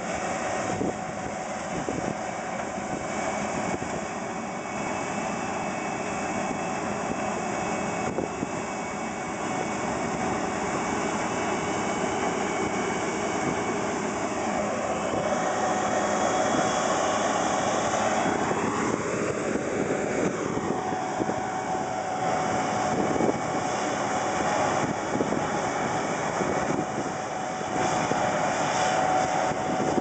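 New Holland CS6050 combine harvester running while cutting rice, its engine and threshing machinery making a steady drone that grows gradually louder as it comes nearer. Around the middle a whine briefly rises and falls in pitch.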